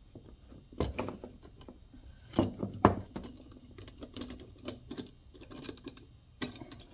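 Irregular light clicks and knocks of metal parts and hand tools being handled while an air compressor's cylinder head is assembled and tightened on a workbench, with a few sharper knocks about a second in and around three seconds in.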